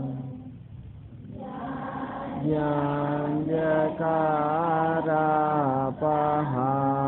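Group of voices chanting a prayer in unison with long held notes, dropping away about a second in and resuming, with brief breaks later on.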